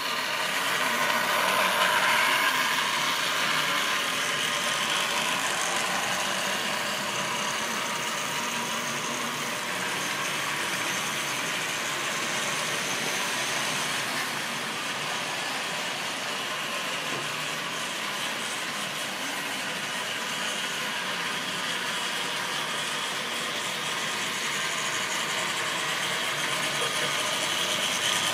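Model railway train running on the track: a steady mechanical whirr and rattle from the locomotive's motor and gears and the wheels on the rails, loudest about two seconds in.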